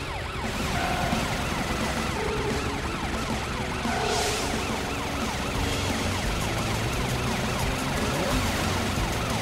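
Emergency-vehicle siren sound effect in a fast yelp, its pitch rising and falling several times a second without a break, as the cartoon police car and fire truck give chase.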